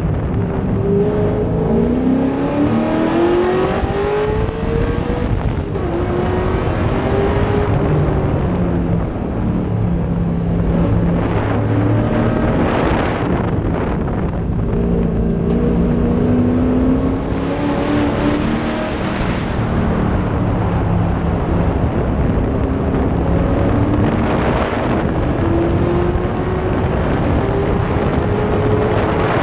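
Race car engine under hard acceleration, heard from its own bonnet. The engine note climbs repeatedly and falls back at gear changes and for corners, with wind rushing over the microphone throughout.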